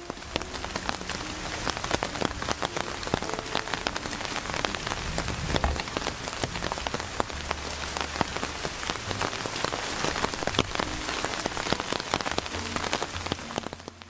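Rain pattering steadily, a dense crackle of many small drops striking a surface.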